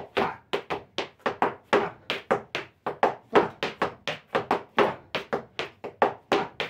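Argentine zapateo footwork: boot heels and soles striking and scraping the floor in a fast, steady rhythm of about five strikes a second.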